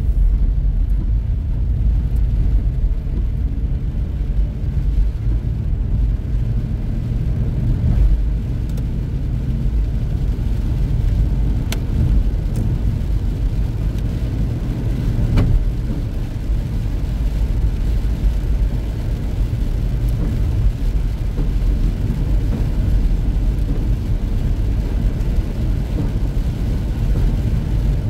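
A car on the highway: a steady, low rumble of road and engine noise. A few faint ticks come through it, about a third and a half of the way in.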